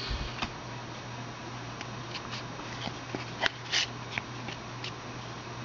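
Trading cards being handled and slid: scattered light clicks and a few short papery slides, the strongest a little past the middle, over a steady low hum.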